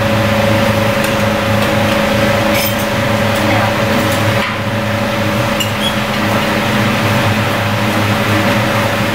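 Steady drone of a commercial kitchen's wok range and extractor fan, a constant hum, with a few light clinks of a metal spoon against plates as fried rice is dished up from the wok.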